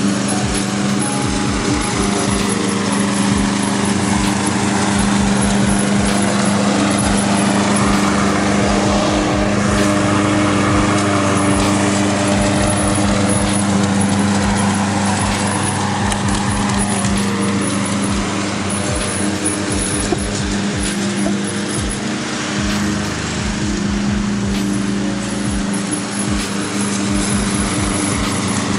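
Walk-behind lawn mower's small engine running steadily while the mower is pushed across the grass cutting, its sound swelling somewhat as it passes nearer about ten seconds in.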